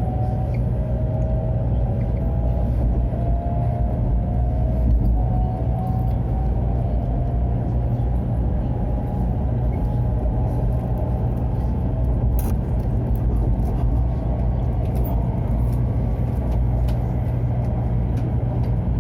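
Taiwan High Speed Rail train accelerating: a steady low rumble with a faint whine that steps upward in pitch over about the first ten seconds, a noise the rider takes to be abnormal.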